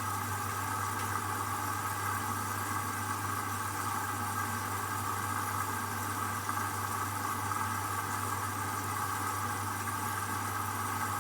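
Hoover washing machine during its first rinse, with the drum at rest between tumbles. There is a steady low hum and a steady hiss, without the pitch of the drum motor.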